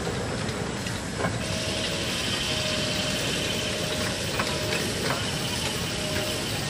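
Case steam traction engine running as it drives off, with a steady hiss of steam coming in about a second and a half in.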